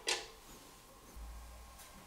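A short metallic click as the wire bail handle of a restored Chalwyn oil lantern drops against the lantern's frame. It dies away almost at once, leaving faint room tone.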